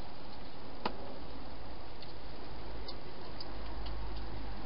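A wild hedgehog feeding in a plastic feeding box: a few faint scattered clicks and crunches, the clearest about a second in, over a steady hiss and low hum.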